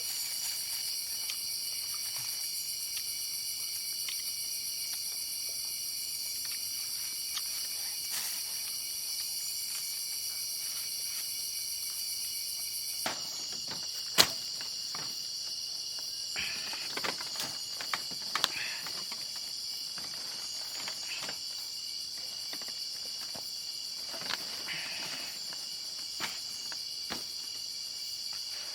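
A steady chorus of insects, crickets among them, made of several unbroken high tones. A sharp click comes about halfway through, followed by a few softer knocks and rustles.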